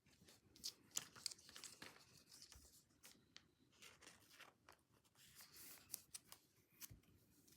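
Faint crinkling and rustling of thin plastic card sleeves as trading cards are slid into them, with scattered light ticks from the cards.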